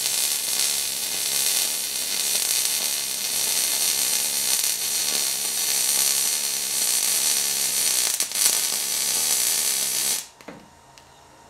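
MIG welding arc crackling steadily as a bead is laid on a horse-drawn wagon axle being welded back together. The crackle cuts off suddenly near the end when the arc stops.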